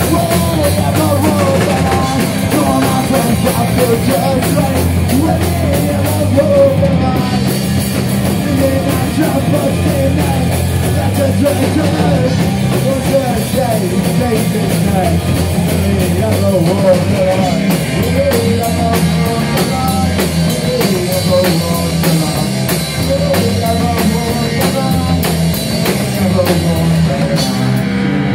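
A rock band playing live and loud: electric guitars over a busy drum kit, without a pause.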